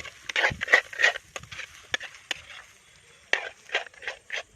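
A spoon or spatula scraping and knocking in a pan in quick, irregular strokes while stirring a bread-sandwich stuffing that is nearly cooked.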